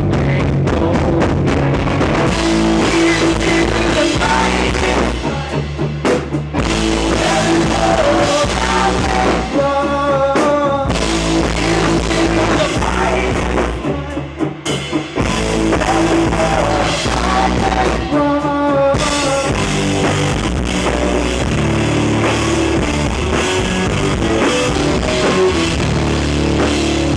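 Rock band playing an instrumental stretch of the song on drum kit, guitar and bass, with brief breaks about six and fifteen seconds in.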